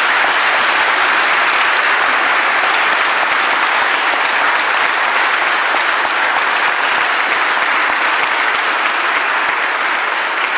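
Congregation applauding: sustained, steady clapping from many people, echoing in the church, that holds at full strength and begins to die away at the end.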